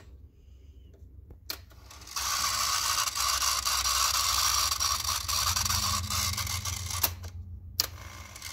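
Tandberg TCD 310 three-motor cassette transport: a key clicks, then the tape spools at high speed with a steady whir for about five seconds. A couple more key clicks follow, and the high-speed winding starts again near the end.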